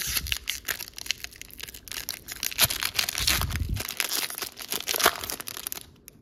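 Foil booster pack wrapper of a Pokémon TCG Chilling Reign pack being torn open by hand, crinkling with many small sharp crackles.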